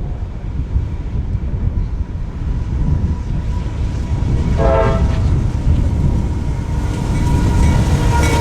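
Wind buffeting the microphone with a heavy low rumble. About halfway through, a diesel locomotive horn gives one short toot. Near the end the approaching freight train grows louder, with a steady tone coming in.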